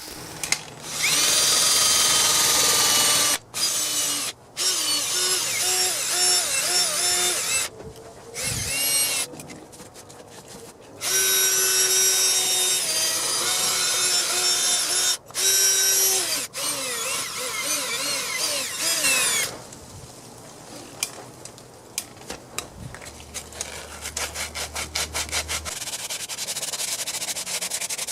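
Handheld power tool running in loud spells, its whine rising and falling in pitch under load, with sudden stops and starts. After that comes quieter rhythmic rubbing, like sanding by hand.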